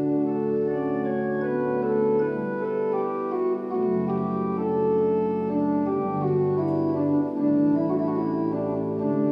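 Church organ playing slow, held chords over a low bass line, the chords changing every second or two.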